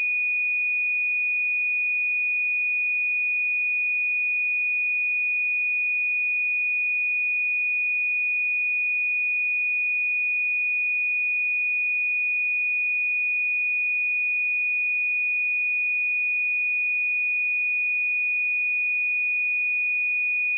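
A pure 2466 Hz sine-wave test tone, one steady high-pitched pitch held without change.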